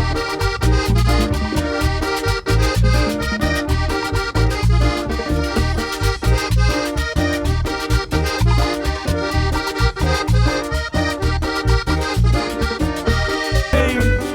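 A chanchona band playing an instrumental cumbia passage live, the accordion carrying the melody over a steady, pulsing bass and percussion beat. Near the end the music shifts to a new phrase.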